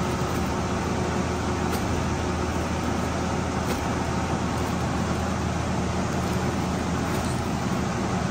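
Laminar flow hood blower running steadily, a constant airy rush with a low hum, with a few faint clicks.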